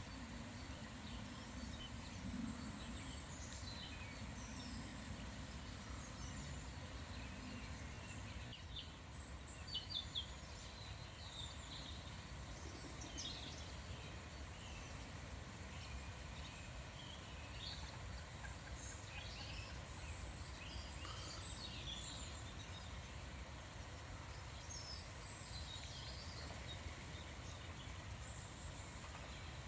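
Wild birds chirping and calling in short, scattered high notes over a steady low background noise.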